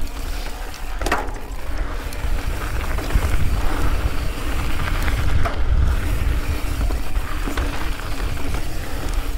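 Mountain bike descending a rocky trail: heavy wind buffeting on the microphone as a steady low rumble, with scattered sharp clacks and rattles as the bike rolls over rocks.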